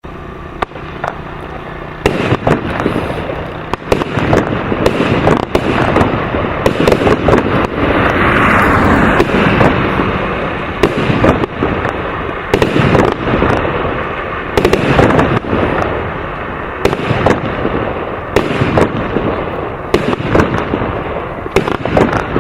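Aerial firework battery firing: after a quieter first two seconds, a dense, continuous run of bangs and crackling bursts.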